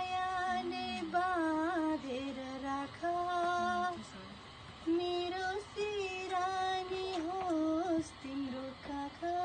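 A woman singing a slow melody, holding long notes with wavering, ornamented turns and short pauses between phrases.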